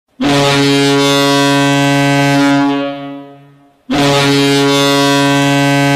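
Goal horn sounding: a deep air-horn blast of two low notes together, held steady for about two and a half seconds and then dying away. A second identical blast starts about four seconds in.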